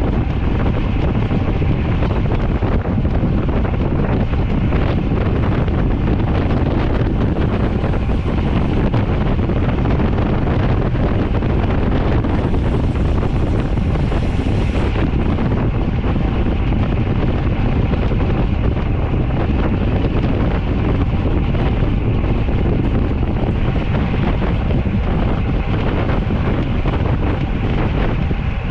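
Steady wind buffeting the microphone of a camera riding on a moving bicycle: a loud, low rumble of rushing air.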